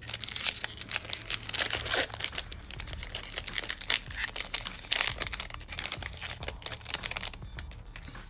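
Foil wrapper of a Magic: The Gathering set booster pack being torn open and crinkled: a dense run of crackles that thins out about seven and a half seconds in.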